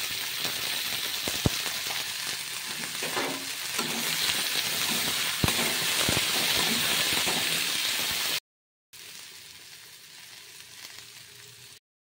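Sliced bitter gourd sizzling in hot oil in a wok, with a few sharp taps of the metal spatula against the pan. The sizzle cuts out about eight seconds in, and after a brief gap a quieter sizzle follows that stops just before the end.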